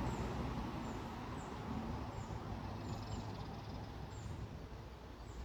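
Steady hum of highway traffic, fading after a passing vehicle. Over it, a small bird gives short, high, faint chirps, about once a second.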